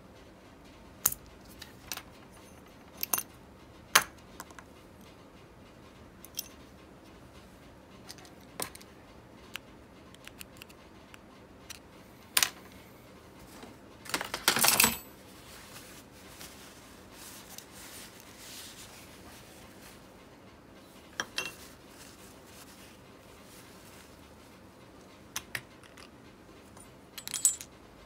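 Small metal parts clinking and tapping on a hard surface as they are handled: scattered single clicks, with a longer clatter about halfway through and another short one near the end.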